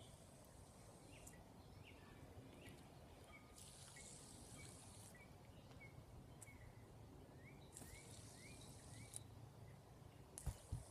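Near silence: faint room tone with soft, short rising chirps repeating every half second or so, and a couple of light clicks near the end.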